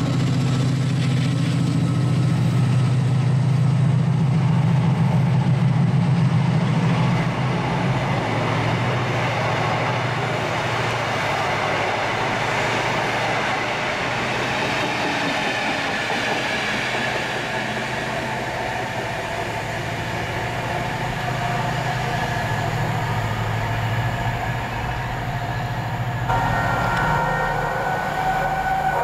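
A train passing. A steady low engine drone gives way after about seven seconds to the rushing noise of wheels and vehicles going by, and several steady tones come in near the end.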